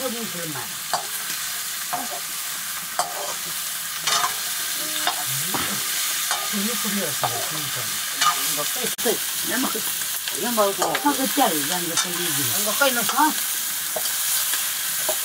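Chicken curry frying and sizzling in a wok over a wood fire while a metal ladle stirs it, with short scrapes and clinks of the ladle against the pan.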